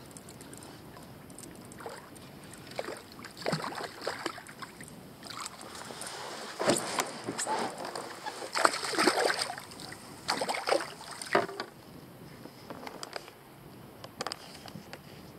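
A small red drum splashing at the water's surface beside a kayak as it is reeled in and grabbed by hand: a series of irregular splashes, loudest around the middle.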